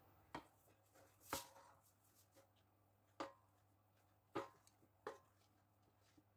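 A few soft, separate knocks, five in about six seconds, from a kitchen utensil against a mixing bowl as sponge batter is emptied out onto a baking tray.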